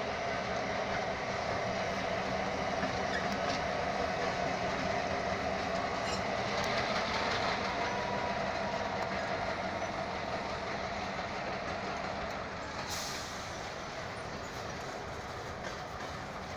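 Freight train rolling past: a mid-train diesel locomotive goes by, then loaded boxcars. Steady wheel-and-rail rumble that eases off a little about two-thirds of the way through.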